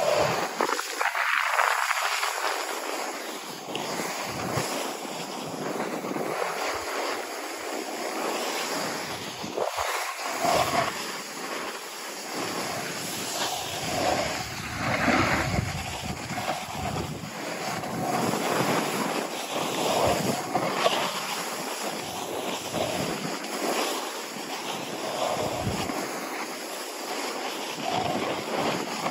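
Wind buffeting the microphone together with the scraping hiss of edges sliding over packed snow during a run downhill, swelling and easing in repeated surges.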